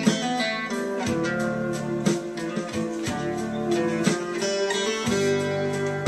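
Instrumental music led by acoustic guitar, plucked and strummed, with a new chord or note group struck about once a second.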